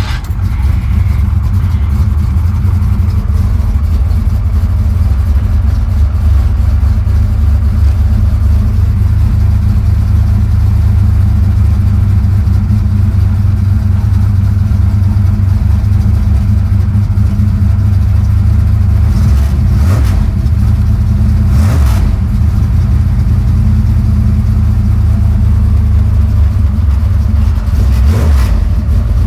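Car engine with FiTech fuel injection running on E85, catching right at the start and then running loud and steady at idle. It is a cold start that needs a prime shot to fire. There are a few brief noisy bursts over the engine in the last third.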